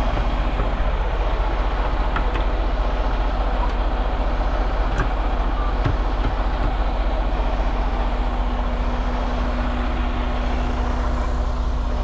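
Semi-truck tractor's diesel engine idling steadily, heard from beside the cab; a steady hum joins about halfway.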